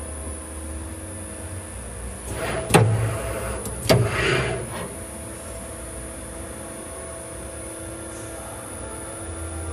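CNC band saw blade grinder running in its automatic cycle: a steady motor hum, broken twice, about three and four seconds in, by a sharp clack followed by a short hiss.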